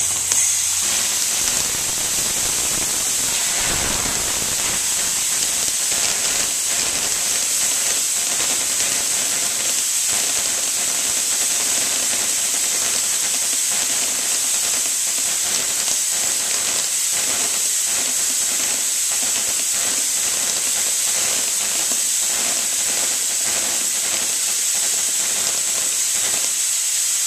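Compressed air rushing out through a homemade airsoft gun's brake-line barrel in one continuous high hiss, with faint irregular ticking, as it fires plastic BBs on full auto.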